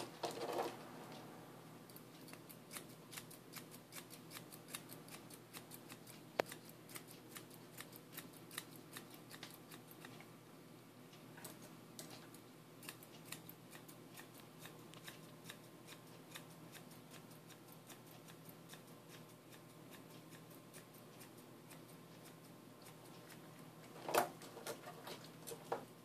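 Grooming shears snipping through a dog's head fur: faint, quick clicks several times a second in runs with short pauses. A brief louder handling sound comes near the end.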